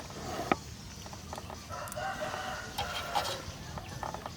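A rooster crowing once, one drawn-out call starting about a second and a half in, with a sharp knock shortly before it and a few faint knocks.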